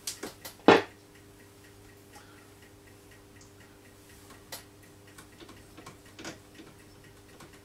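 Waveband switch of a Decca DMR88 valve radio being clicked over to long wave: a few sharp clicks, the loudest under a second in. Faint irregular ticks follow as the set is worked, over a steady low hum.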